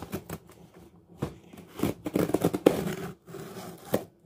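A blade slitting the packing tape on a cardboard box: scratchy scraping and tearing of tape and cardboard with a few sharp clicks, busiest about two to three seconds in.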